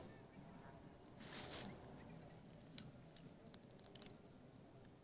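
Faint campfire crackling: a few scattered sharp pops, with a short hissing rush about a second in.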